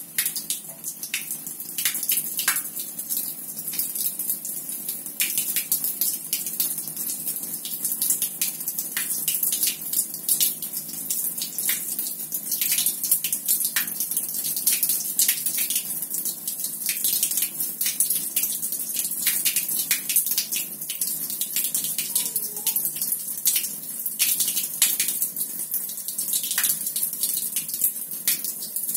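A thin stream of rinse water, driven by CO2 at about 1 bar up a keg's dip tube and out of the tap, splashes steadily onto a tiled floor, with frequent irregular spattering crackles.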